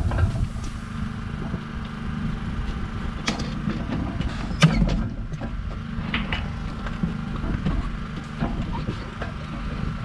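Sheep handling crate clanking and knocking as a sheep is run in and squeezed, with the sharpest knock about four and a half seconds in, over a steady low machine hum.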